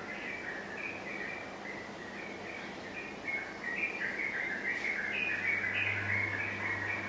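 Many small birds chirping and chattering continuously, the calls growing denser and louder in the second half, over a low steady hum that strengthens about five seconds in.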